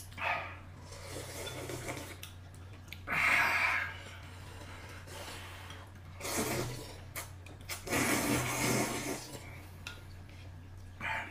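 Slurping of rice noodles and broth, in several short bursts, the loudest about three seconds in, with a low steady hum underneath.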